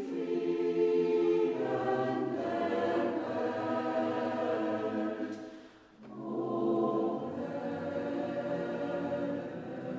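Choir singing a sacred song in sustained phrases, with a short break between phrases about six seconds in.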